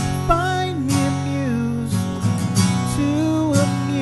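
Background music: strummed acoustic guitar under a melody line that slides between notes.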